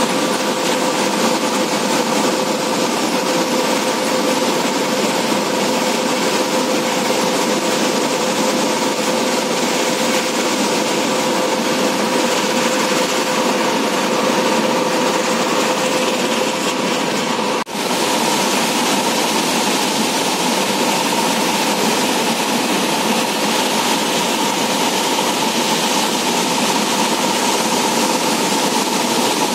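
Huge volume of floodwater discharging through a dam's spillway gates, a steady, loud rush of churning water with a faint steady hum running through it. The sound breaks off for an instant about two-thirds of the way through.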